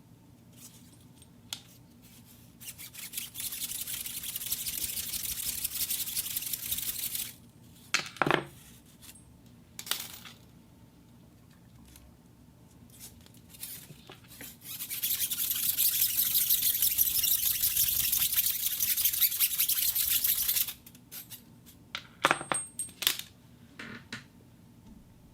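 Metal springs worked for sound effects: two long stretches of dense, fast metallic rattling and scraping. Twice a sharp strike rings out with a quick falling pitch, and there are a few lighter clicks.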